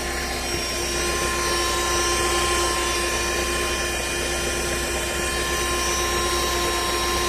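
Fiat Punto 1.4 Fire four-cylinder engine running steadily with a loud, shrill whine like a worn bearing. The owner traces it to the oil filter, which he finds vibrating, after ruling out the belts and injectors.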